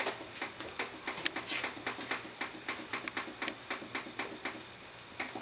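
Rapid, even clicking from an oven's touchpad temperature-down key being tapped over and over, about four clicks a second, as the bake setting steps down; the clicking stops near the end.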